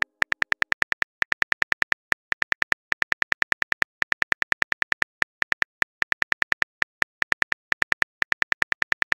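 Phone keyboard typing sound effect: rapid, evenly spaced key clicks, about seven a second, in runs broken by brief pauses.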